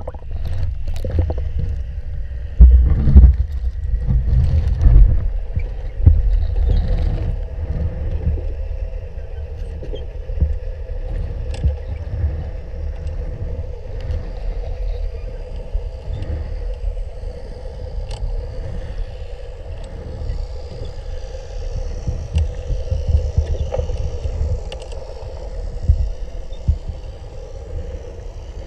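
Low underwater rumble of boat engine and propeller noise carried through the canal water, with a steady hum over it and occasional faint clicks. It is loudest in the first few seconds, then settles to an even drone.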